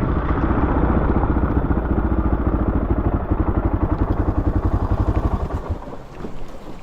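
Honda XR600R single-cylinder four-stroke dirt bike engine idling with an even, slow beat, then dropping away about five and a half seconds in.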